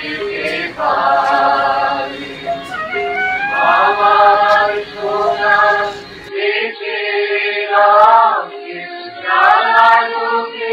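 Background music: a song with singing voices over a steady held drone. A low background noise under the song stops suddenly about six seconds in, leaving the music alone.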